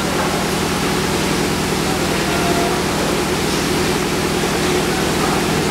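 Factory machinery running at a constant pace: a continuous hum of a few steady tones under a broad, even hiss, with no change.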